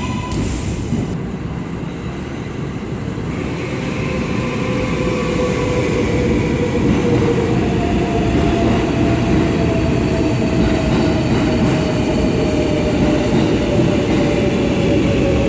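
New York City subway 7 train running in the station, a steady noise that grows louder over the first several seconds, with a thin whine that slowly falls in pitch.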